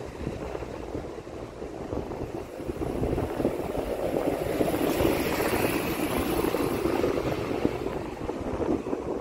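Outdoor traffic-type rumble with wind buffeting the microphone. The noise swells from about three seconds in and is fullest around the middle, as of a vehicle passing.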